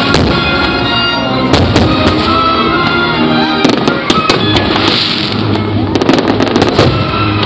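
Fireworks shells exploding in a string of sharp bangs over loud show music, the bangs coming thick and fast near the end as a volley goes up.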